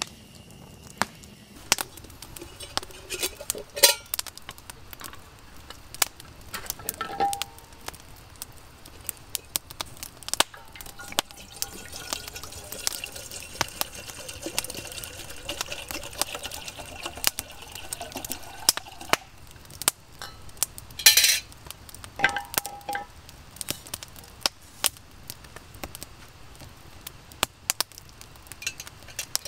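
Camp cooking: metal cookware and utensils clinking and knocking now and then, with a few seconds of liquid pouring midway, over the frequent small crackles of a campfire.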